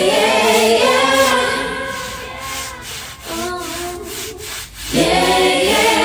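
A song with sung vocals plays over the scraping of a stiff-bristled push broom scrubbing a wet concrete floor. The singing is loudest at the start and again from about five seconds in.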